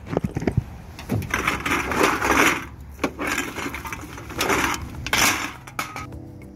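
A plastic garbage bag full of empty aluminium drink cans rustling, and the cans clattering inside it as the bag is handled and set into a shopping cart. The rustling comes in a few bursts: one long one, then two short ones.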